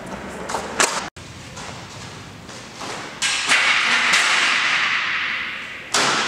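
Aluminium roller-shutter curtain being lifted and carried: sharp knocks about a second in, then a longer stretch of rattling noise from the slats that fades away, and another sharp knock near the end.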